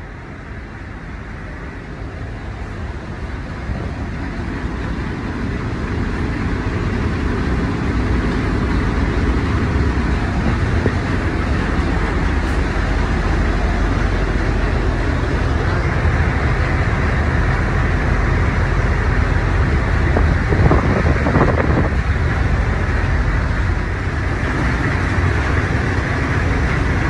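Ship's engine-room machinery running: a loud, steady deep rumble with a broad hiss over it, growing louder over the first several seconds and then holding level.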